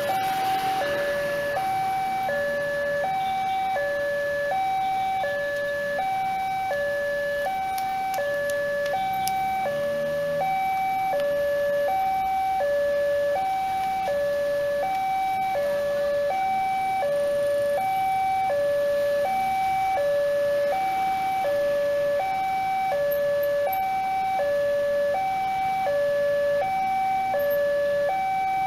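Railway level-crossing warning alarm sounding, an electronic two-tone signal alternating evenly between a higher and a lower note, each about half a second long, without a break. It is the warning that a train is approaching and the crossing is closed.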